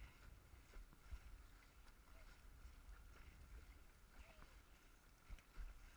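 Faint splashes of dragon boat paddles dipping into the water about once a second, in time with the crew's strokes, over a low rumble of water and wind on the microphone.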